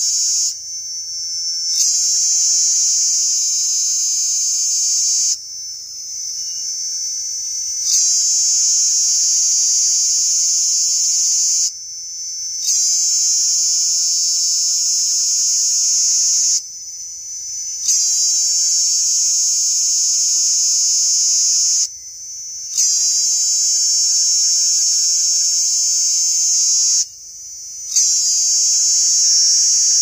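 Cicada singing: a loud, high-pitched buzz in phrases of about four seconds, each starting abruptly, broken by short pauses of one to two seconds.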